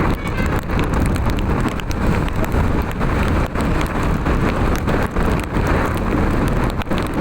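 Rain and wind noise on the microphone: a dense rush over a heavy low rumble, peppered with sharp drop-like ticks. No horn melody comes through.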